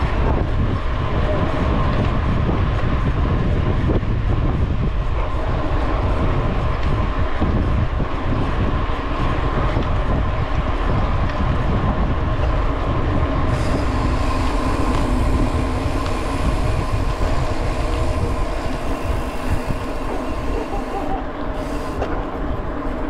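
Steady rumble of a vehicle travelling along a highway: engine and tyre-on-road noise, with more hiss from about halfway through.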